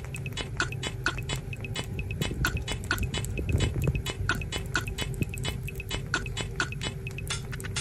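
Sugar gliders licking and lapping food from a squeeze feeder: rapid, irregular wet smacking clicks, over a faint steady hum.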